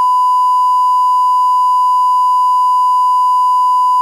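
Broadcast 1 kHz line-up tone played with SMPTE colour bars: a single steady, unbroken pure beep at constant level, the reference signal for setting audio levels.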